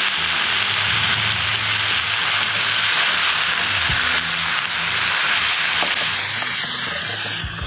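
Ground turkey sizzling steadily in hot oil in a nonstick frying pan, with a spatula knocking and scraping against the pan as it breaks up the meat in the second half; the sizzle eases a little near the end.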